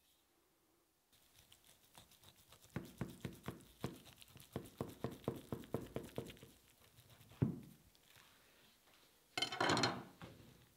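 Large kitchen knife sawing through a thick layered roll of raw salmon, tuna and halibut on a plastic cutting board, a quick run of strokes at about four a second. A single knock follows, and a brief louder handling noise near the end as the fish is gripped.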